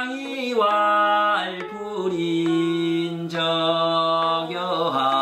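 A man chanting a line of Classical Chinese in the traditional Korean seongdok reading style: long held notes that slide slowly up and down in pitch.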